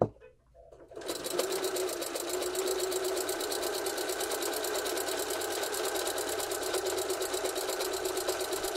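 Computerized sewing machine stitching a seam at a steady, even speed, starting about a second in after a short knock.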